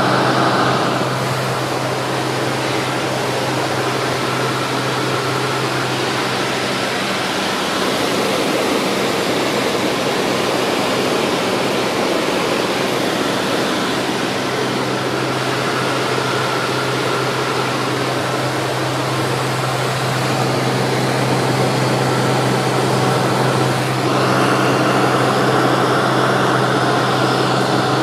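Cabin noise of a Cessna 207 in flight: the steady drone of its piston engine and propeller under a broad hiss of rushing air.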